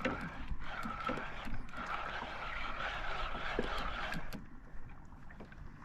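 Kayak moving through the water under pedal power: a wavering rush of water with scattered light clicks, which cuts off abruptly about four seconds in.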